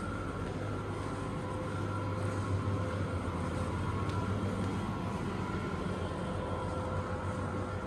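Steady indoor room hum from building machinery: a low drone with a few faint steady higher tones above it.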